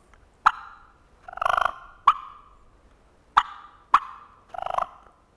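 Turkey clucks and purrs: four sharp single clucks, with two short rolling purrs, one about a second and a half in and one near the end.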